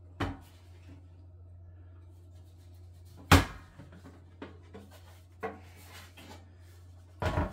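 Lid of a Tower multi cooker's pan knocking against the pan as it is lifted off: one sharp clank about three seconds in, then a few lighter knocks as the lid is handled, over a low steady hum.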